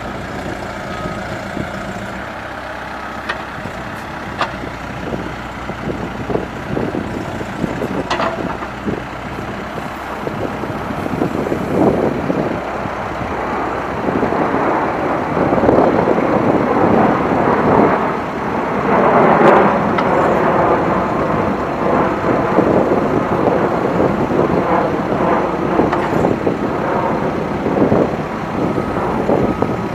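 Case 580M Series 3 backhoe loader's diesel engine running, with a few sharp knocks in the first third. From about a third of the way in, it works harder in repeated rising and falling swells.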